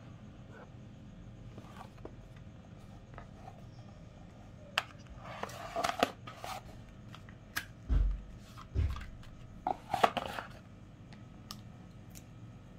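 A cardboard smartphone box being opened by hand: the lid pulled off and the box handled, with scraping, rustling and clicks between about five and ten and a half seconds in, and two dull thumps near the middle.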